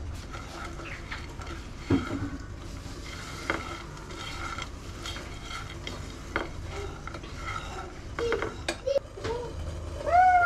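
Silicone spatula stirring and scraping chopped nuts around a nonstick frying pan, with a few light knocks against the pan. Near the end, a voice starts up.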